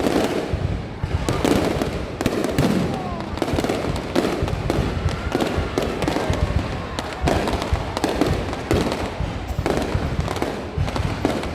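Fireworks going off in rapid succession: a dense, continuous run of bangs and crackles, one after another.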